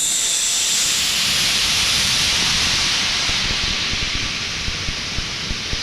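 Compressed air rushing out of a salvaged air-compressor tank as it is opened to empty it: a loud, steady hiss that eases a little toward the end.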